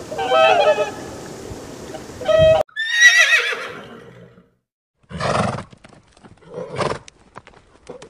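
Geese honking over a steady background hiss, then after a cut a horse whinnies: one long wavering neigh that trails off, followed by two shorter, lower horse calls and faint clicks near the end.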